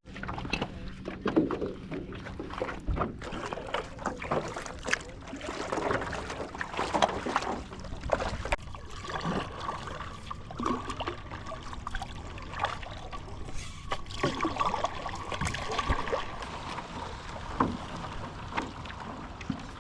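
Stand-up paddleboard paddling: paddle blades dipping and splashing, water sloshing and trickling, with irregular light knocks throughout.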